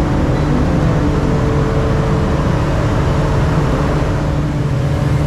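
Steady machine drone holding several even tones, with wind rumbling and buffeting on the microphone.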